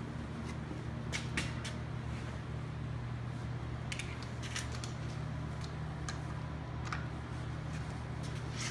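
Steady low workshop hum, with a few scattered light clicks and taps of hand tools being handled.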